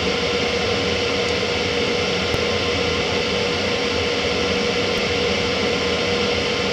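A machine running steadily: an even hiss with a constant mid-pitched hum.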